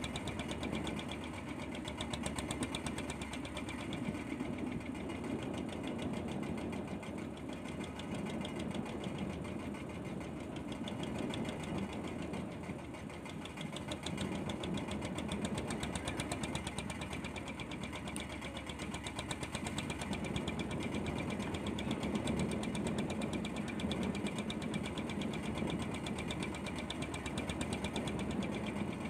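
Fishing boat's inboard engine running steadily with a fast, even knock, over sea and wind noise.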